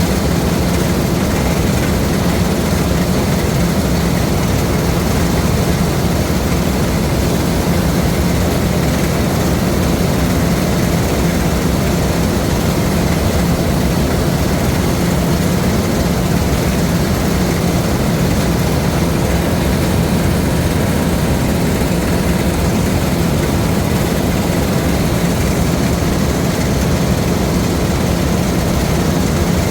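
Diesel engine of a LOVOL RG130 EVO rice combine harvester running steadily, a constant low drone that holds the same level throughout.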